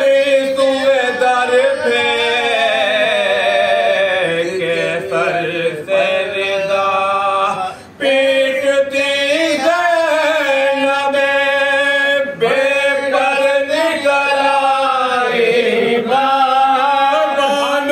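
Men's voices chanting an Urdu Muharram lament (marsiya) together, unaccompanied, in long held, slowly gliding notes, with a brief break about eight seconds in.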